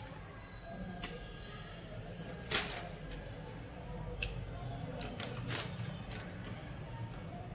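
Deflated rubber balloons being handled and set down on a tiled floor: a few short rustles and taps, the loudest about two and a half seconds in and another about five and a half seconds in, over a low steady hum.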